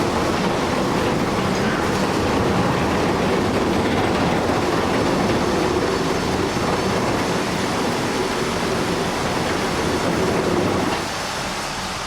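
Heavy machinery running: a loud, steady, dense mechanical noise that drops somewhat in level about eleven seconds in.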